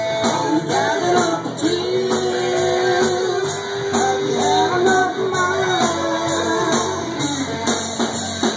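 Live rock band playing a passage between sung lines: drums with a steady cymbal beat, strummed guitars, and a lead line with one long held note in the middle.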